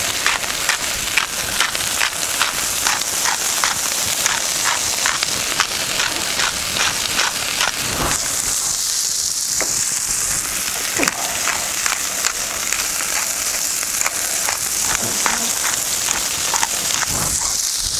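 Smashburger patties and bacon frying on a hot Blackstone steel griddle: a steady sizzle with many sharp pops of spitting fat, the popping thickest in the first half.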